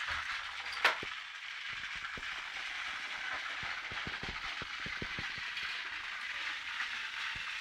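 Several battery-powered Thomas the Tank Engine toy trains running on a home track layout: a steady motor whir with scattered light clicks, and one sharper click about a second in.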